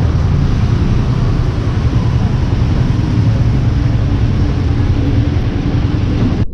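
Street traffic: steady low engine and road rumble as scooters, motorcycles and cars pass close by. It cuts off abruptly at the end.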